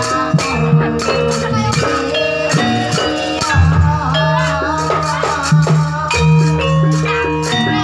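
Javanese gamelan-style ensemble music for a dance: struck bronze metallophone keys and gongs ringing in held tones over frequent hand-drum strokes, with a wavering lead melody rising above them in the middle.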